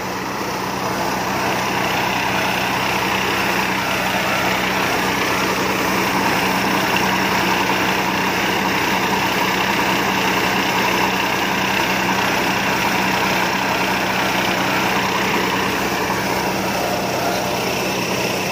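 Combine harvester engine and machinery running steadily under load, a continuous heavy mechanical drone with a constant low hum that builds up over the first couple of seconds and then holds.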